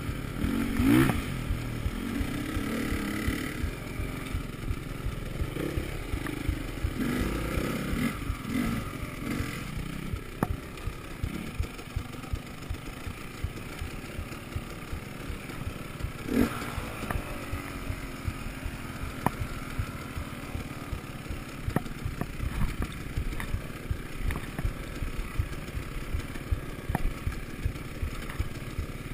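Enduro dirt bike engine on the move over a rough trail, revs rising and falling with the throttle, with frequent knocks and rattles as the bike jolts over bumps. Two sharper knocks stand out, about a second in and around the middle.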